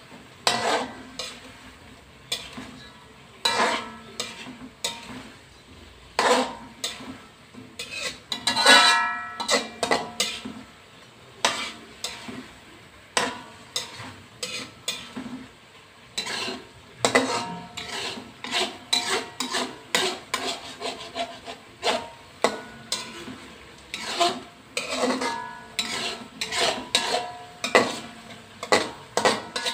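Spatula scraping and clanking against a metal wok while stirring whole fish in a wet sauce. The strokes are irregular and keep going, some with a short metallic ring, and the loudest is about nine seconds in.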